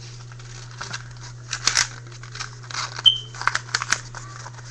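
A sheet of paper being rolled up by hand into a tube, rustling and crinkling in irregular bursts, with a short high squeak about three seconds in, over a steady low electrical hum.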